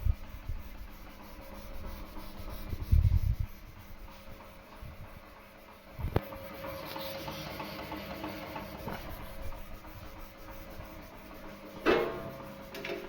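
Artur Huster FB3 vertical bandsaw and filing machine running with a steady hum. Low thumps come about 3 and 6 seconds in, and a sharper knock about 12 seconds in.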